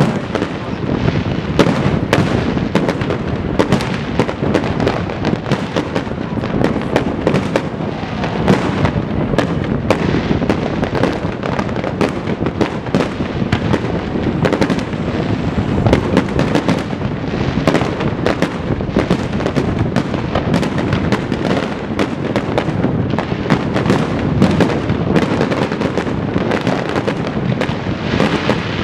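Aerial fireworks display: shells bursting in a dense, rapid barrage, many overlapping bangs and crackles a second.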